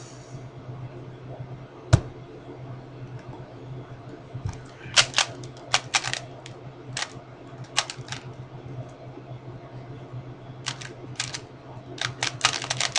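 3x3 Rubik's cube being turned by hand during a speed solve: irregular clusters of quick plastic clicks as the layers snap around. A single sharper knock comes about two seconds in.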